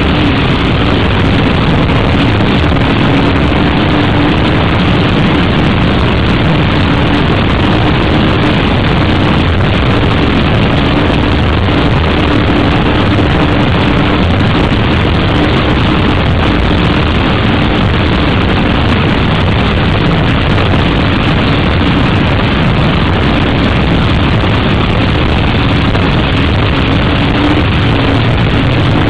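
Offshore racing powerboat running at speed, heard from on deck: a loud, steady engine drone at a constant pitch mixed with the rush of wind and water.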